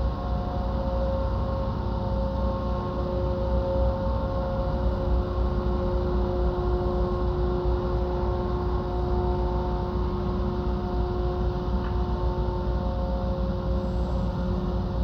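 Container ship MOL Empire passing close by, giving off a steady low rumble with a droning hum of several held tones.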